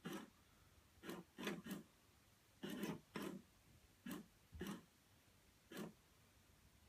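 PetSafe FroliCat cheese cat toy's motor moving the plastic mouse in and out of its holes: short bursts of mechanical whirring, about nine, coming at irregular intervals.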